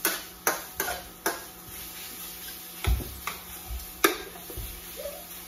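Metal wok spatula clacking and scraping against a wok while stir-frying chicken pieces. The sharp clacks come at uneven intervals, a quick run of them in the first second and a half, with the loudest about four seconds in.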